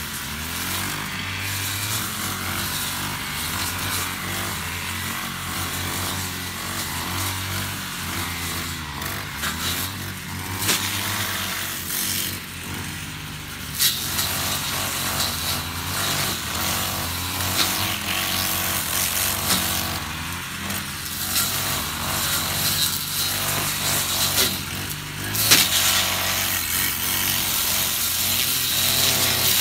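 Honda UMK450T brush cutter with its GX50 four-stroke engine running under load as it cuts through tall grass and weeds. The engine note rises and falls with the cutting, with a few sharper, louder swishes along the way.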